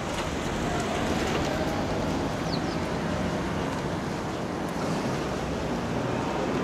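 Steady outdoor background noise: a constant rumble and hiss with a faint hum underneath.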